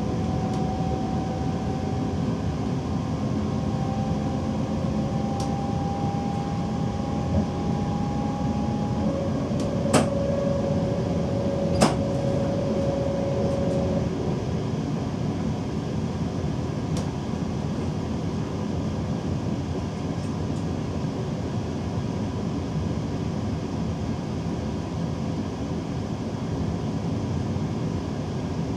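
DB Class 425 electric multiple unit running, heard from inside its driver's cab: a steady rumbling noise with faint whining tones that rise slowly over the first half, and two sharp clicks about two seconds apart near the middle.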